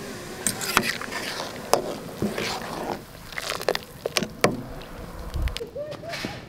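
Metal slotted spoon stirring a large aluminium pot of boiling stock: liquid sloshing, with the spoon clinking sharply against the pot many times.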